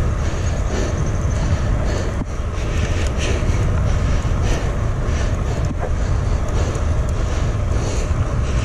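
Wind rumbling on the microphone of a moving bicycle, a steady low buffeting with an even hiss of riding noise over it.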